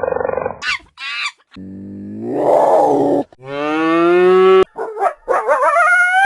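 A quick run of different mammal calls: a short buzzing growl, two brief high swooping calls, then two long moo-like lowing calls, and wavering high-pitched calls near the end.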